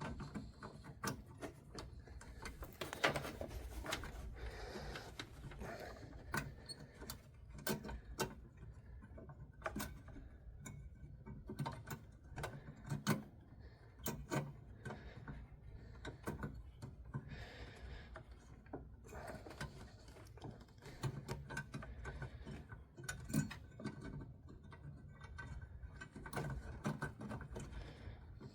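Irregular small clicks, taps and scrapes of a headlight bulb being worked by hand into its plastic housing, its retaining clips being lined up to snap in.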